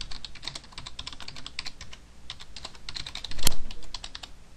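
Rapid typing on a computer keyboard, many quick keystrokes in a row. One key is struck much harder about three and a half seconds in, and the typing stops shortly after.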